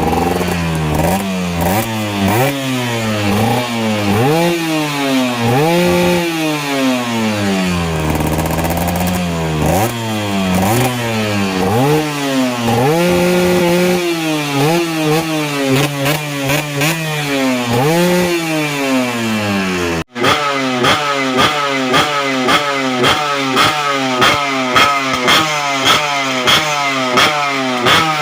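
Yamaha TZM 150 single-cylinder two-stroke engine revving, its pitch climbing and dropping again and again. After a cut about two-thirds of the way in, the throttle is blipped in quick, short, evenly spaced bursts.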